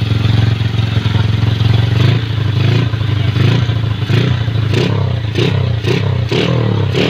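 Honda XRM 125 motorcycle engine, bored out to a 62 mm cylinder, running through a Daeng aftermarket exhaust pipe. It idles steadily, then from about two seconds in the throttle is blipped in quick repeated bursts, roughly one and a half a second.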